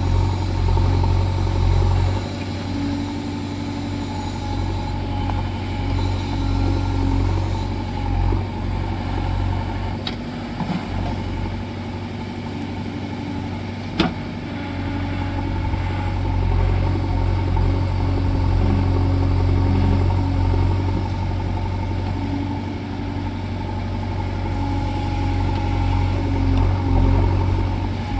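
JCB 3DX backhoe loader's diesel engine running under changing load. It eases about two seconds in and builds up again past the middle. A single sharp knock comes about fourteen seconds in.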